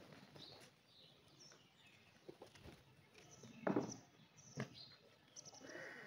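Faint high chirps of small birds, with low feral pigeon cooing near the end. A short, loud thump a little past the middle, and a sharp click about a second later.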